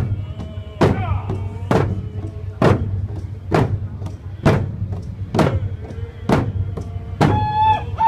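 Group of hand drums struck together in a steady beat, about one stroke a second, under voices singing a Native gathering song. The singing swells louder near the end.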